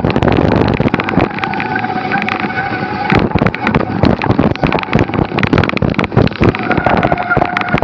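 Cannondale F-Si hardtail mountain bike riding a rough trail: a steady clatter of knocks and rattles from the bike over the ground, with wind on the microphone.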